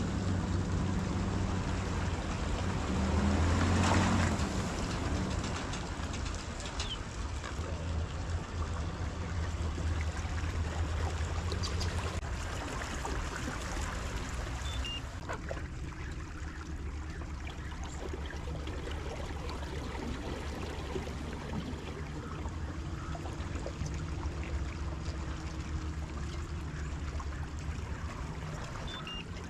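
Steady low rumble of wind and water on open water, with a louder swell of noise about four seconds in.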